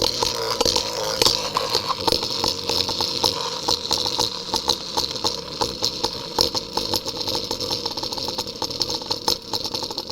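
Storm Pegasus Beyblade spinning in a stadium: a fast, continuous rattle of many quick clicks over a whirring hiss, slowly thinning and getting quieter toward the end as the top loses spin.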